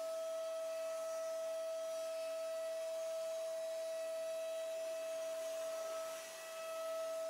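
CNC milling machine taking finishing passes over a polished metal part with a ball-nose end mill: a steady, high-pitched cutting whine that dips briefly about six seconds in.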